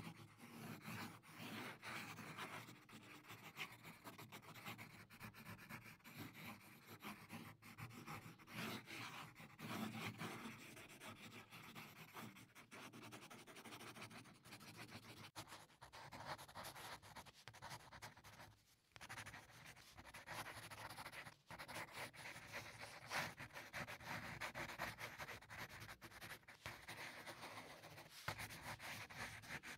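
Faint pencil scratching on paper: quick, repeated sketching and shading strokes, with two brief pauses past the middle.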